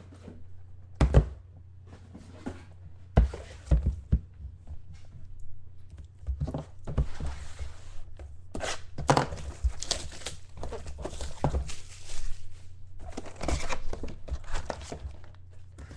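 A sealed box of trading cards being handled and opened: a few thuds of the box knocking on a table in the first seconds, then tearing and crinkling of its wrapping.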